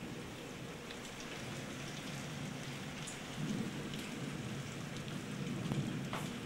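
Torrential rain pouring down, with scattered sharp drops, and a low rumble of distant thunder swelling from about halfway through.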